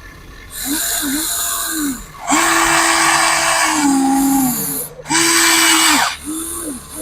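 Huina 1594 radio-controlled excavator's electric motors whining in short bursts as its controls are worked. Each burst rises in pitch as a motor spins up, holds steady, then falls away as it stops. Several quick rising-and-falling whines come close together near the end.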